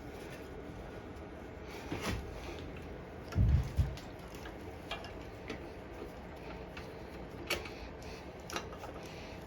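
Scattered light clicks and taps of small metal parts being handled as a lawn mower carburetor and its throttle linkage are fitted back on, with one dull low thump about three and a half seconds in.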